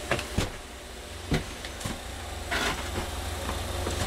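A steady low hum with a few scattered knocks and clicks, the loudest about a second and a half in, and a short rustle near the middle.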